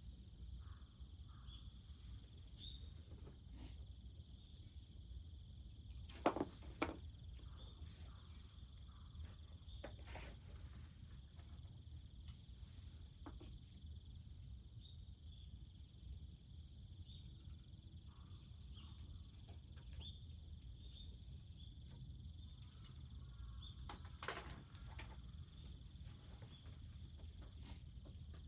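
Insects chirping in a steady high chorus, with a few sharp pops and clicks from a crackling wood fire, the loudest about six seconds in and again near the end.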